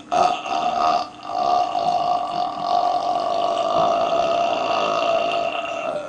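A man belching: a short burp, then one long, drawn-out belch of about five seconds at a fairly steady pitch.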